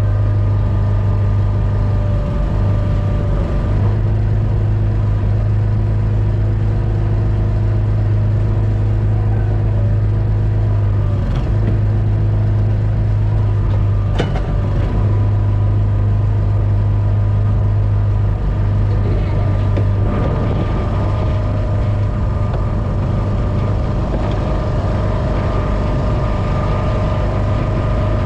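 Small fishing boat's engine running steadily with a deep, constant hum and a few steady whining tones over it. There is a sharp knock about halfway through.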